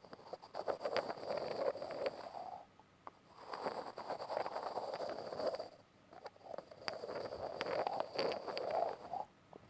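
Close-up grinding: a gritty, crackling scrape peppered with small clicks, coming in three strokes of two to three seconds each with brief pauses between them.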